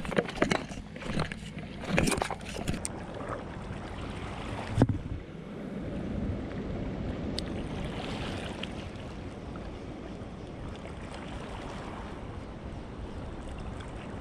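Footsteps clattering and crunching over loose shoreline rocks, ending in one sharp knock about five seconds in; then a steady rush of wind and sea water.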